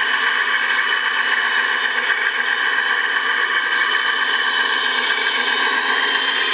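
Radio-controlled model Scania truck driving slowly past at close range: a steady, even drone with several held tones and almost no bass.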